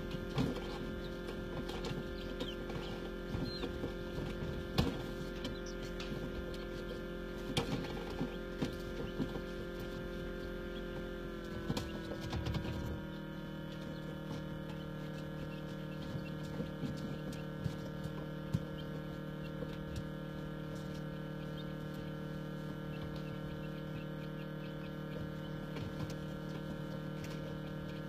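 Egg incubator humming steadily, its pitch dropping slightly about twelve seconds in. Scattered short clicks and peeps from a newly hatched quail chick on the wire floor sound over the hum.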